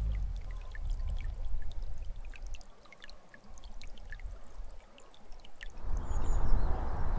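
Shallow, rocky stream trickling and babbling over stones, with many small bright splashes. A louder rushing noise swells near the end.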